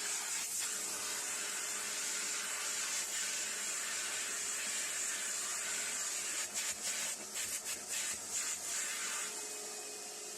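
A small high-speed power tool running steadily with a hissing, scratching noise, then winding down near the end.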